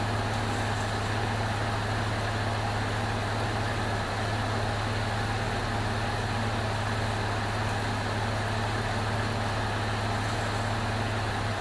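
Chrysler 3.7 L V6 in a 2002 Jeep Liberty idling steadily, freshly swapped in and running smoothly.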